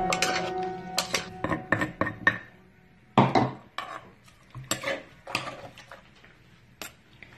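A wooden pestle and a spoon knocking and clinking in a mortar while lemon pieces are pounded and mixed: a run of irregular knocks, the loudest about three seconds in.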